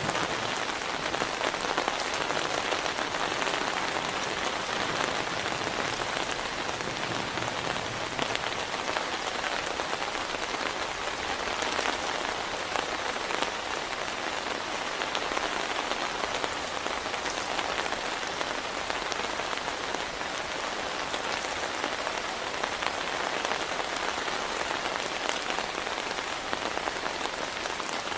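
Heavy rain falling steadily, a dense patter of drops on a surface.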